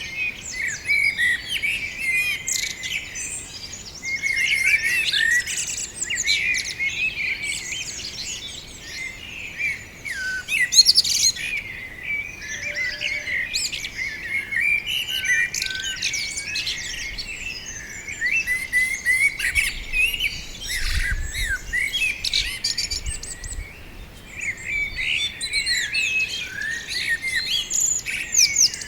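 Several songbirds chirping and singing at once in a dense, continuous chorus of quick high notes. A brief low rumble comes in about two-thirds of the way through.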